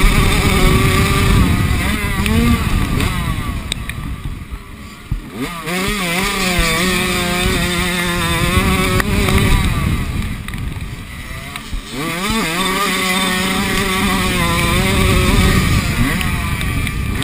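Minicross motorcycle engine heard from the onboard camera, revving up and down as the throttle is worked. It drops away around four to five seconds in and again near twelve seconds, then climbs back up.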